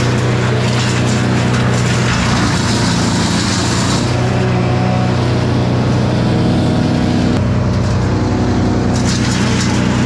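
Tracked wood chipper running with a steady engine drone while branches are fed into it and chipped. The chipping noise sits over the first four seconds, drops away, and comes back near the end.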